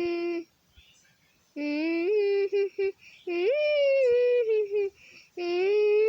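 A high-pitched voice humming wordless held notes with small pitch slides. It stops briefly near the start, then comes back in three short phrases.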